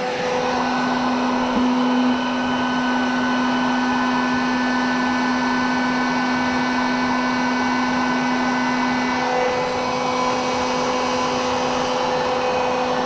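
Electric heat gun blowing steadily with a motor whine, heating the flywheel to free it from the crankshaft taper. It changes slightly in tone about nine seconds in and cuts off suddenly at the end.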